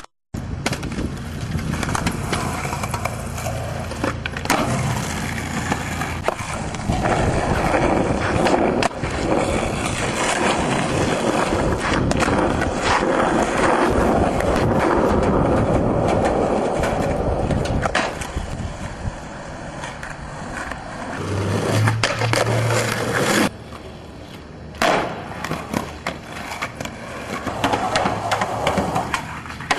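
Skateboard wheels rolling on concrete and asphalt, with sharp clacks of the board hitting the ground every few seconds as tricks are popped and landed. The sound breaks off abruptly a few times where one clip cuts to the next.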